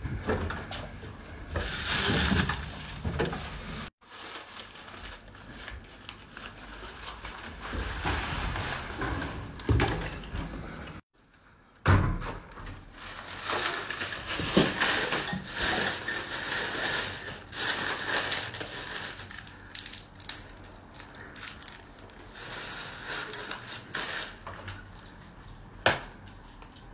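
Rustling and handling noise from a person moving about and handling a plastic bag, with a few sharp knocks, the loudest about twelve seconds in and another near the end.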